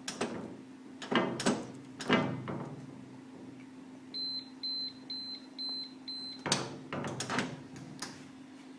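Metallic clunks and knocks from a Sentry Safe gun safe's door and lock, the loudest in the first two seconds. In the middle come five short high beeps, about two a second, from its push-button keypad as the five-digit combination is keyed in, followed by a few more clunks.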